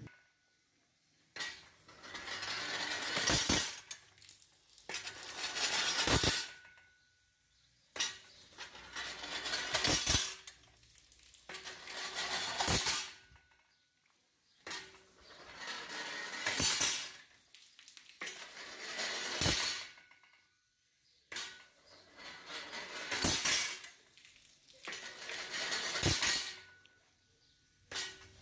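Homemade steam-powered water pump running in repeated cycles, about eight in the span, a few seconds apart. Each cycle is a rushing hiss that swells for a second or two and ends in a sharp metallic clank.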